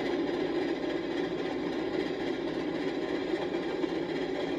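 Passenger cars of a long train rolling past at speed: a steady rumble of steel wheels on the rails.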